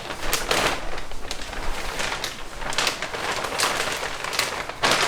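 Plastic bag crinkling and rustling in a dense run of crackles as the chassis brace is pulled out of its packaging.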